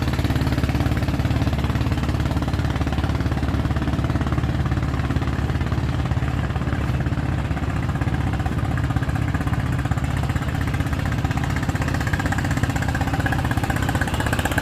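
Boat engine running steadily with a fast, even low putter.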